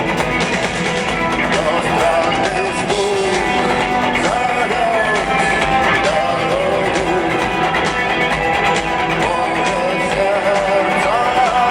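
Rock band playing live in an arena: loud, steady band sound with guitar and a wavering sung melody.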